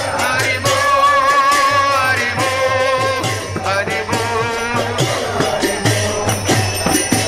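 Group of devotees singing a Bengali devotional bhajan (kirtan) together, accompanied by jingling percussion keeping a steady beat.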